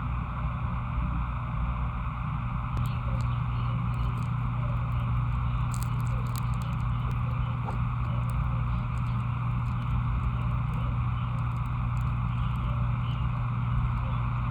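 Steady mechanical hum with a strong low drone and a band of higher hiss, unchanging throughout, with a few faint clicks scattered over it.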